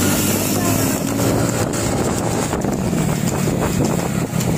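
Motorcycle engine running steadily at road speed, with heavy wind buffeting on the microphone.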